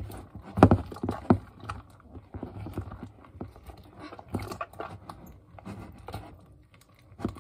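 A hand mixing fluffy slime in a plastic bowl: irregular wet slaps and knocks as the slime is pressed and turned, with the loudest strokes about a second in.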